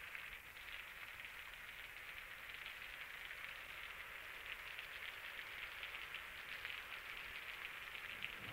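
Steady rain falling, a dense fine patter of drops.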